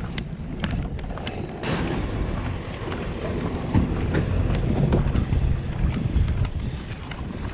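Wind buffeting the microphone as a low rumble, with irregular clattering knocks over it.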